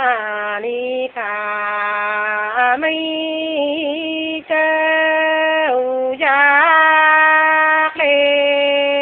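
Solo voice singing a Nùng folk song unaccompanied, in long held notes that each open with a wavering slide in pitch, with short breath breaks between phrases.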